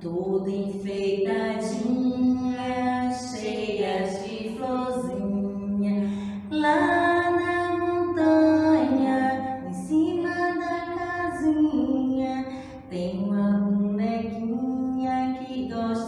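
Women singing a children's song in Portuguese, with long held notes that step up and down in pitch.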